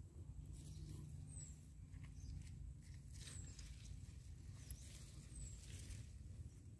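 Faint rustling of ground cherry leaves and stems as a hand searches among the plants for fallen fruit, over a low steady rumble. A short high chirp, falling in pitch, repeats about every two seconds.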